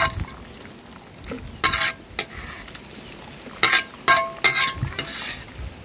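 Soup being poured from a tilted metal wok into an aluminium pot, the liquid splashing. Metal clinks and scrapes with short ringing tones come about two seconds in and several times around four seconds in.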